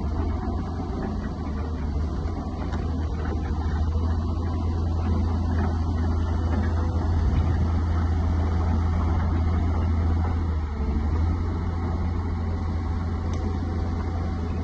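Diesel engine of a New Holland E215B tracked excavator idling steadily, a constant low hum.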